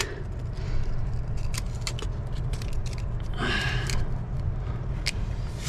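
Hands handling small parts under a car dashboard: scattered light clicks and knocks, and a short rustling scrape about three and a half seconds in, over a steady low hum.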